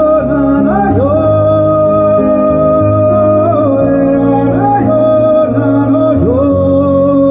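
Music with a singing voice holding long notes, sliding up into each one, over a steady bass line.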